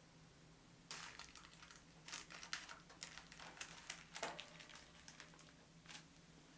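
Faint, irregular crinkling and tapping of baking parchment as gloved hands handle a freshly baked sponge sheet and peel the paper back at its edges, busiest in the first half with a sharper tap about four seconds in.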